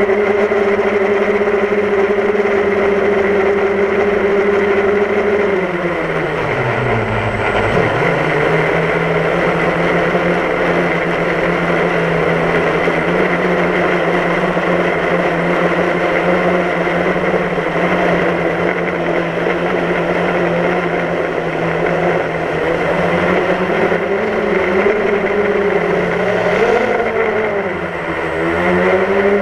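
DJI Phantom quadcopter's motors and propellers buzzing steadily, heard up close through the camera it carries. The pitch drops sharply and recovers about six seconds in, then wavers and dips again near the end as the motors change speed.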